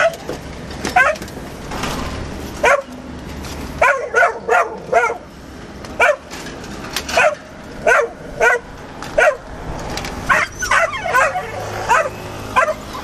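A frightened dog crying and yelping over and over in short, high cries, often several in quick succession: distress cries of a dog caught in a net.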